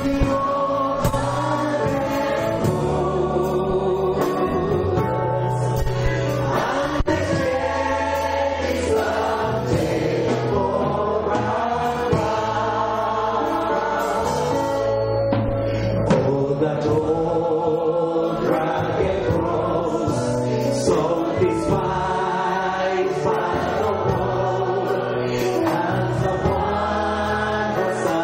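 Choir and congregation singing an Easter carol together, led by a man singing into a microphone.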